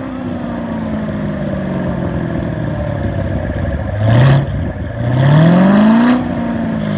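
Chevrolet Corvette Z06's supercharged V8 revved while parked, heard through its exhaust: it settles back to idle, gives a short blip about four seconds in, then a longer rev that climbs for about a second and falls back. The engine is in Sport mode, one of the drive modes being compared for exhaust sound.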